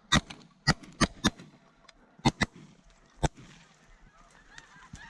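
A volley of shotgun blasts from several hunters firing at snow geese: about seven sharp shots in quick succession, some in pairs, over the first three and a half seconds. Snow geese honk faintly behind them.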